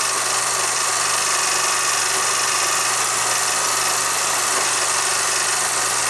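Old optical-sound film running through a projector: a steady hiss with a constant low hum underneath and an even mechanical whir.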